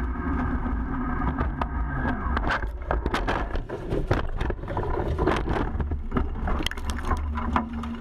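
Rally car rolling over at speed, heard from inside the cockpit: the engine running at first, then repeated heavy crashes, crunching and scraping as the body tumbles along the gravel stage.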